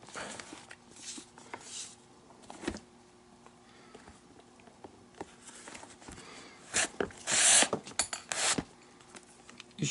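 Leather lace being drawn through the lace holes of a leather baseball glove (Nike Diamond Pro J) during palm and heel relacing: several rasping pulls with rustling of the lace and leather in between. The longest and loudest pull comes about seven and a half seconds in.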